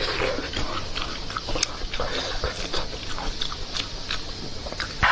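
Wet chewing and lip-smacking of a woman eating a large piece of sauce-covered braised meat, with many sharp smacks and clicks of the mouth.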